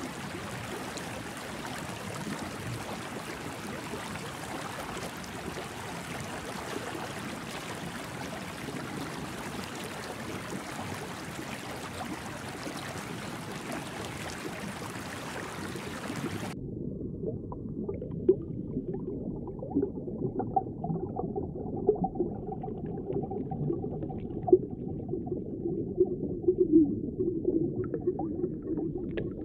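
Steady rushing water noise that cuts suddenly, a little over halfway through, to a muffled underwater ambience with wavering low tones and irregular pops.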